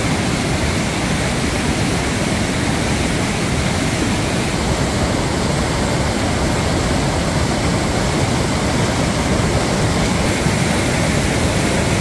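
Swollen Mindhola river in monsoon flood, muddy water rushing and churning over a ledge as a loud, steady, unbroken rush.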